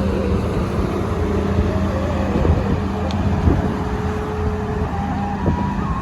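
Heavy diesel engine of road-building machinery running steadily at a constant speed, with a few small knocks.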